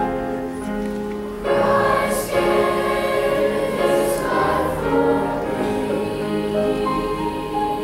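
Junior high mixed choir singing with piano accompaniment, the full choir coming in louder about a second and a half in.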